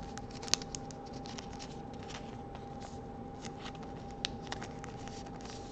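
Trading cards being handled: scattered light clicks and scratchy slides of card stock against card and fingers, the sharpest click about half a second in. A faint steady hum runs underneath.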